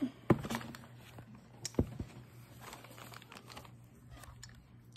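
Plastic mailer bag crinkling and rustling as a boxed diamond painting kit is handled and pulled out of it. There are sharp crackles about a third of a second in and again just before two seconds.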